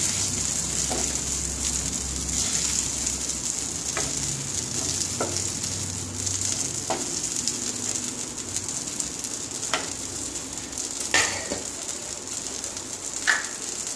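Mustard oil sizzling steadily in a wok after frying prawns, with a few light knocks and scrapes from a wooden spatula against the pan.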